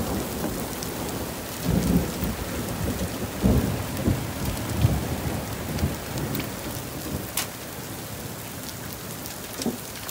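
Near golf-ball-sized hail pelting a wooden deck, the ground and vehicles in a dense, steady clatter of sharp impacts. Several heavier low thuds come about 2, 3.5 and 5 seconds in.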